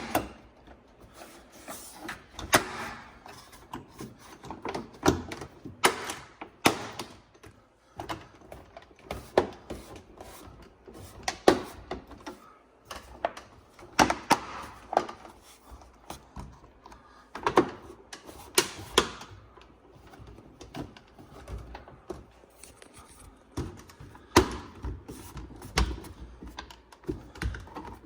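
Plastic molding of a microwave door being pressed and snapped back into place: an irregular run of clicks, snaps and light knocks.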